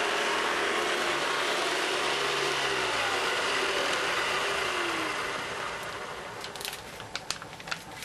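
Hoover Decade 80 upright vacuum cleaner running on carpet, then switched off about three seconds in; its motor falls in pitch as it spins down. It is followed by a few scattered light clicks.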